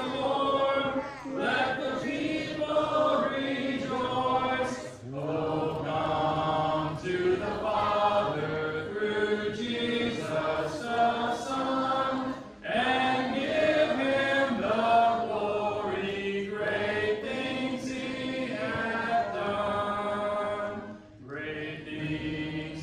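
Congregation singing a hymn a cappella: many unaccompanied voices holding notes in phrases, with short breaks between lines.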